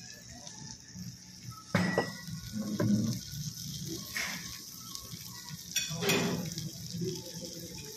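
Tandoori sizzler platter sizzling on its hot iron plate, a steady hiss, with a few knocks and clatters of dishes about two, three, four and six seconds in.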